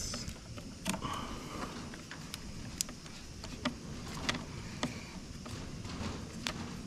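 Scattered light clicks and taps, about seven, of a screwdriver and hand tightening a lead onto a motorcycle battery's terminal bolt, over a faint steady hum.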